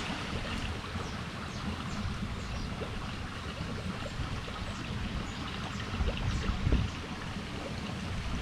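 Water sloshing and trickling, with small ticks and splashes and a stronger low splash about six and a half seconds in.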